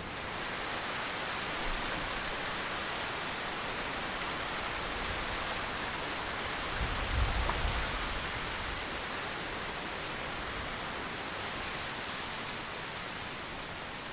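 Steady rushing hiss of strong wind, with a brief low gusting rumble on the microphone about seven seconds in.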